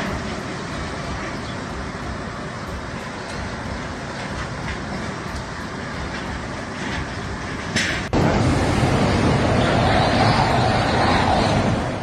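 Fast floodwater rushing and churning debris, a steady noise. About eight seconds in, an abrupt cut brings a louder storm: strong wind and driving rain.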